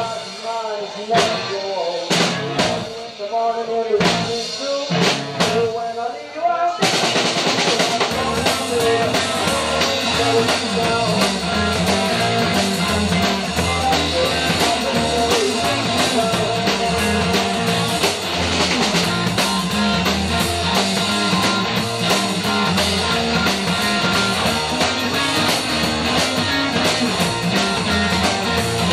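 Rock music recording: drums with a sliding melodic line at first, then about seven seconds in the full band comes in, dense and loud with a steady driving beat.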